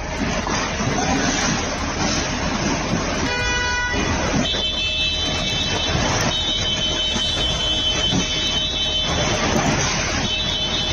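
Landslide rock and debris crashing down onto a road tunnel entrance, a steady rushing noise, with a vehicle horn sounding: one short honk about three and a half seconds in, then long high-pitched honks through most of the rest.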